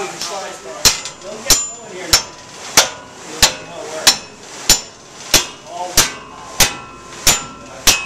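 Water-powered sash sawmill running: a sharp knock with each stroke of the up-and-down saw, evenly about one and a half a second, starting about a second in.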